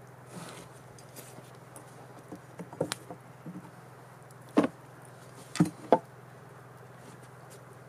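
Sharp knocks and clunks of wooden pieces being handled and set down on a hard surface: a few light knocks about three seconds in, then three louder ones between four and a half and six seconds in, over a steady low hum.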